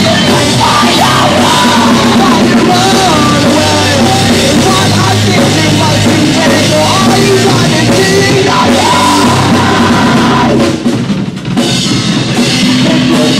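Live metal band playing loud: electric guitars, bass and a drum kit, with a wavering melody line on top. About eleven seconds in the sound drops out briefly, then the band comes back in.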